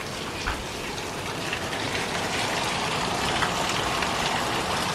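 Heavy rain pouring down: a steady hiss with scattered drop taps, growing a little louder.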